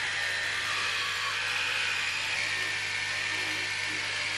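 Electric toothbrush running in the mouth during brushing, a steady, unbroken buzz.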